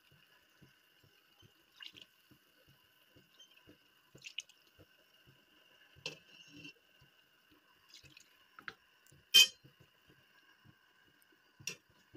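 Pot of lamb soup simmering: soft, irregular bubbling pops and drips, broken by a few sharper clicks, the loudest about nine seconds in.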